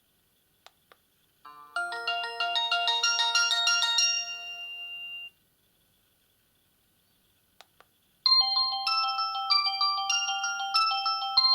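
Samsung GT-E1230 mobile phone playing two ringtones. First comes a quick run of electronic notes ending on a held chord; after a pause and a couple of clicks, a second tune of evenly stepped notes starts near the end.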